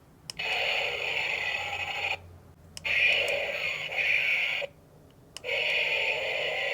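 Infrared remote-control raptor toy playing recorded dinosaur roar sound effects through its small built-in speaker: three calls one after another, each starting with a short click, with brief silent gaps between them.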